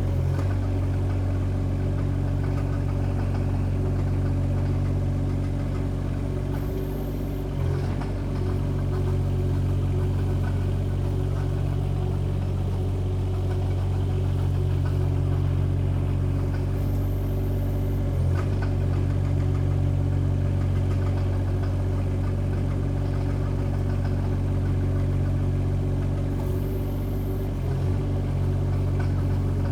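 SD12 compact track excavator's engine running steadily while the machine travels on its tracks in high-speed travel mode. Brief clicks and dips in the engine note come about every ten seconds.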